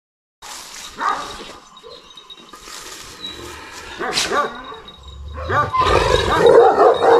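Chained Kangal shepherd dog giving excited yelping whines and barks, starting about half a second in and growing louder near the end.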